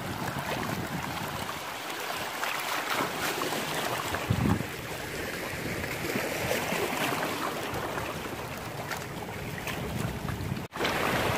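Small waves washing and lapping over shoreline rocks and mangrove roots, with wind buffeting the microphone in gusts, the strongest about four and a half seconds in.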